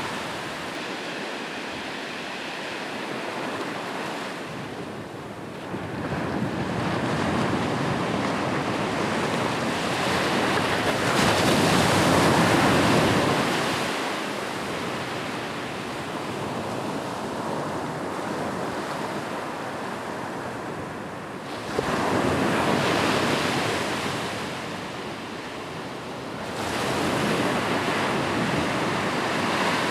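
Ocean waves breaking on a beach, a steady wash of surf that swells and subsides as each wave comes in, with the biggest surges about a third of the way in and again near the end. Some wind buffeting on the microphone.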